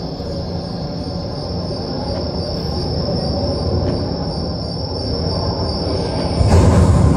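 Dramatic rumbling sound effect played over the play's sound system, a dense low rumble with a thin steady high whine. It slowly grows louder, and about six and a half seconds in it swells into a heavier, deeper rumble.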